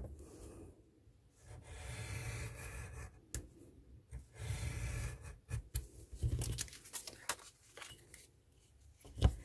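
Craft knife blade drawn through thick layered card along a steel ruler, in several strokes of about a second each, with light clicks as the ruler and card are handled. A dull knock just before the end is the loudest sound.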